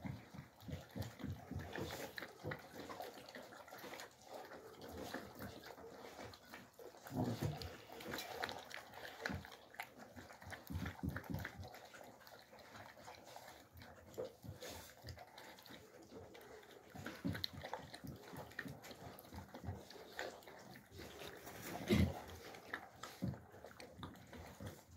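Alabai (Central Asian Shepherd) puppies eating from metal bowls: irregular wet chewing, smacking and snuffling, with a few louder moments.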